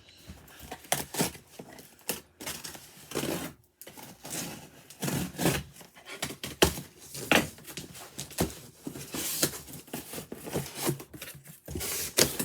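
A cardboard box being cut and torn open with a box cutter: irregular scraping, ripping of tape and cardboard, and rustling and knocks as the packaging is handled.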